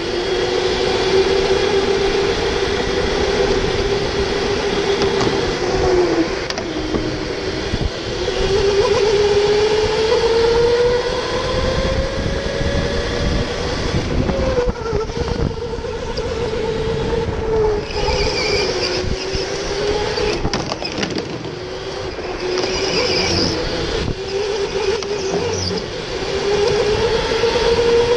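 Electric go-kart motor whining under way, its pitch climbing as the kart accelerates and dropping as it slows for corners, over a steady low rumble. Short high-pitched squeals come twice in the second half.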